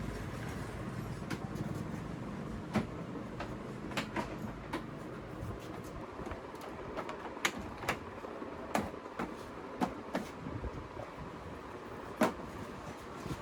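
Factory workshop noise: a steady hum with irregular sharp clanks and knocks of parts being handled, the loudest about three seconds in and near the end.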